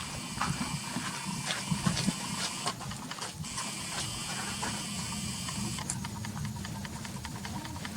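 Footsteps crunching on gravel, with irregular small clicks, over a steady high hiss that stops about six seconds in.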